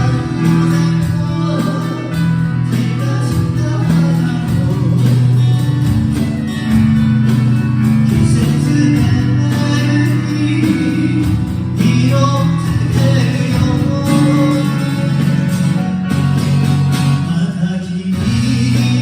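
Live band music: acoustic guitar playing with singing.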